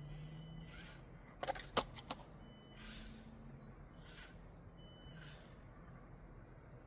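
Small wooden sticks being handled and worked with a multi-tool. A quick run of sharp clicks comes about one and a half seconds in, and soft scraping strokes recur about once a second.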